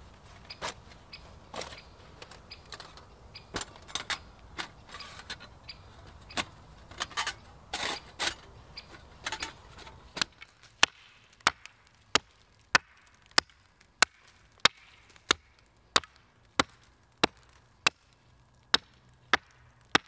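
A hatchet chopping a stick on a tree-stump block in steady, evenly spaced strokes, about three every two seconds. Before that, in the first half, scattered metallic clicks and clinks as the steel plates of a folding Bushbox stove are taken out of their pouch and fitted together.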